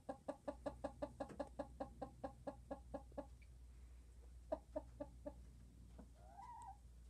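Domestic hens on straw nest boxes clucking: a quick run of about five clucks a second for some three seconds, then a few slower clucks, then one short call that rises and falls near the end. A low steady hum runs underneath.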